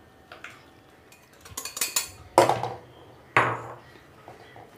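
Clinks and knocks of a glass bowl against an aluminium saucepan as powdered sugar is tipped into the pan: a run of light taps about one and a half seconds in, then two sharper knocks about a second apart, the second with a short metallic ring.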